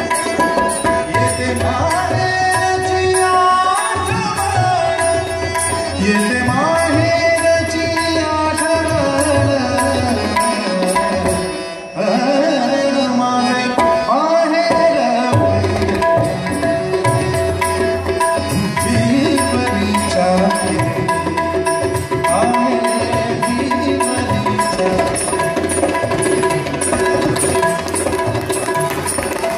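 Tabla keeping a quick rhythmic accompaniment under held drone notes, while a male singer draws out long gliding phrases of a Marathi devotional abhang in a live concert mix.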